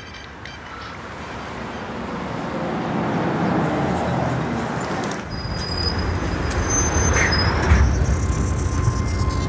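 A bus and traffic growing steadily louder, with a heavy low rumble setting in about halfway through. A few thin high tones and a rising whine come over it near the end.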